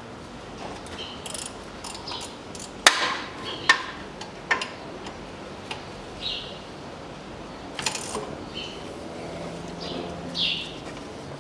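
Hand tools on engine bolts: a ratchet wrench clicking and metal tools knocking against the engine, with several sharp clinks, the loudest about three seconds in. The bolts are the water pump pulley bolts, being loosened while the drive belt is still on.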